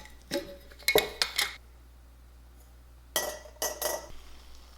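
Kitchen clatter of dishes and utensils knocking together, in two short flurries of sharp clinks and clunks: one about a second in and another around three seconds in.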